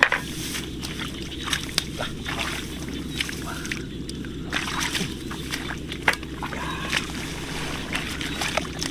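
Irregular sloshing and splashing in shallow field water, over a steady low rumble.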